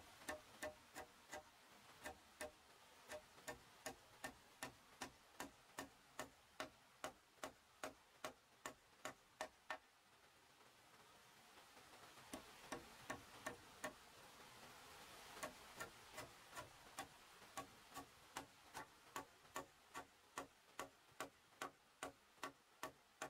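Even, rapid tapping: sharp knocks about two to three a second, stopping for a couple of seconds about halfway through, then resuming.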